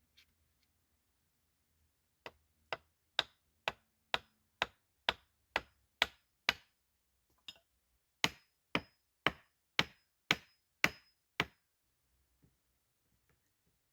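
Repeated blows of a hand tool on wood at a steady rate of about two a second: a run of ten strikes, a pause with one faint tap, then seven more.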